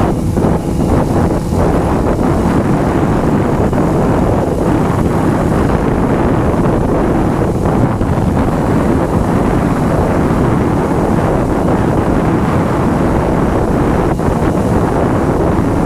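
Heavy wind noise buffeting the microphone of a Honda CBR motorcycle at riding speed, drowning out the engine.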